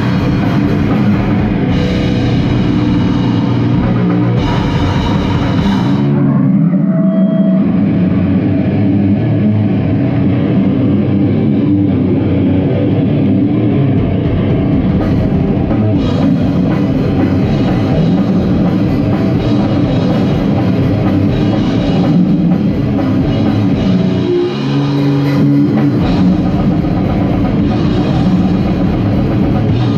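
A goregrind band playing live and loud, with distorted guitar, bass and a drum kit.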